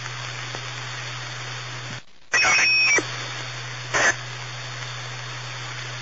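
Police scanner radio hiss with a low steady hum between transmissions. About two seconds in it cuts out briefly, then a loud burst of static carrying a high steady tone squeals for under a second, and a shorter loud burst of static follows about a second later.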